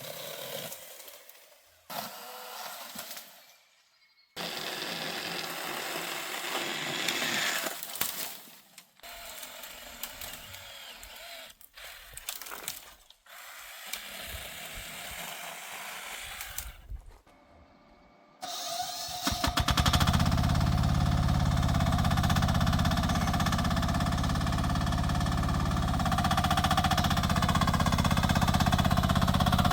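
Rippa R10 mini excavator at work: short, abruptly cut stretches of scraping and clattering. Then, a little past halfway, its engine comes in loud and runs steadily.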